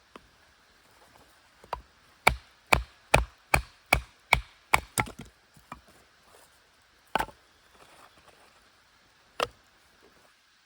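Wood being chopped with a blade: a quick run of about eight sharp strikes, a bit over two a second, then two single strikes a few seconds apart.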